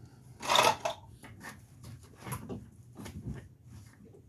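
Metal clanks and clicks of a hand wrench being worked on a stubborn nut on the front wheel hub, with one louder clank about half a second in and shorter, fainter knocks after it.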